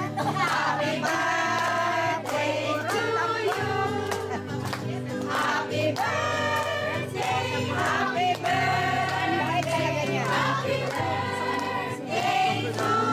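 A group of women singing together in chorus over a steady instrumental backing, with some clapping.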